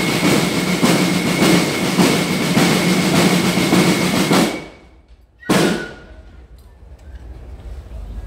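Marching-band snare and bass drums playing a loud drum roll with regular accents, cutting off sharply. About a second later a single hard stroke sounds and dies away.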